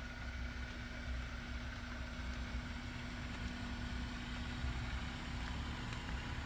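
Steady low mechanical hum with a constant tone running through it, like a vehicle engine idling, with a few faint ticks over it.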